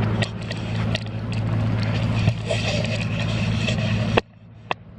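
Vehicle engine idling with a steady low hum, with a few light clicks over it; the sound cuts out abruptly near the end, leaving a single click.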